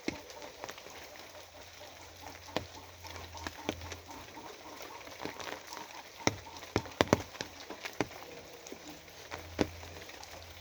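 Rain falling steadily, with irregular louder drops striking close by, several in quick succession about two-thirds of the way through.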